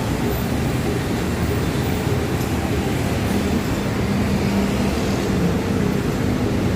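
Steady city-street traffic noise with a low rumble of bus and other vehicle engines; a faint steady engine hum rises out of it partway through.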